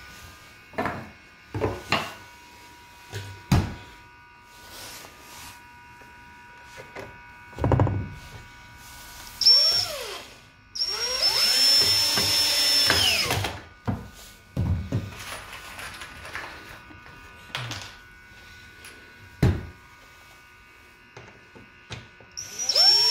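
Cordless drill driving wood screws into the pine stretcher bars of a canvas frame: a short burst about nine seconds in, a longer run of two to three seconds with its pitch falling, and another run starting near the end. Sharp wooden knocks come in between as the frame pieces are handled on the floor.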